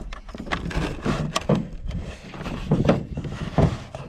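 A hand-screwed grain moisture meter being wound down, crushing a sample of oilseed rape seed between its grinding plates, with irregular creaks and knocks.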